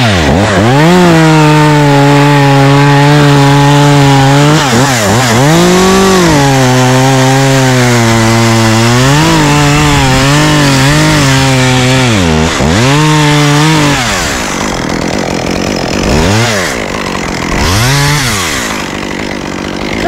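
Chainsaw running at high revs while cutting into a pine trunk. The engine pitch dips and climbs back several times as the throttle is eased and reapplied, and it sags lower in the second half.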